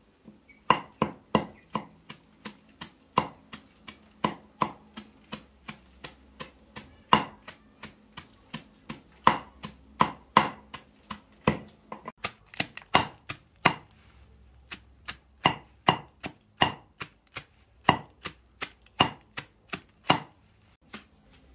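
A knife chopping on a cutting board in steady strokes, about two to three a second, in runs with a couple of brief pauses.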